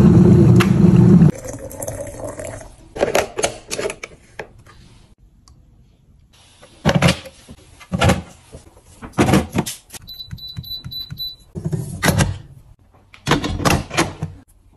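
Kitchen appliances being handled, with knocks and clicks throughout. A loud, low, noisy burst lasts about a second at the start. About ten seconds in, a quick run of short high electronic beeps comes from an appliance's control panel.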